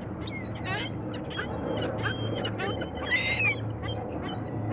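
Birds calling repeatedly with short, high-pitched, wavering chirps, over a low steady hum.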